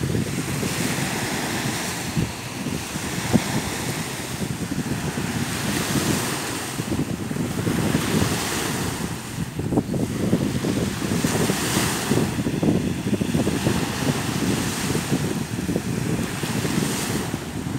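Small waves breaking and washing up on a sandy shore, a fresh hiss of surf swelling every few seconds, with wind rumbling on the microphone.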